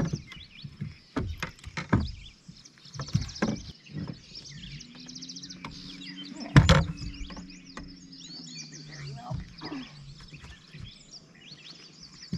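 Knocks and clatter in a fishing boat's bow as a walleye is worked out of the landing net, with one loud thump about six and a half seconds in. Songbirds chirp throughout, and a low steady hum sounds for a few seconds in the middle.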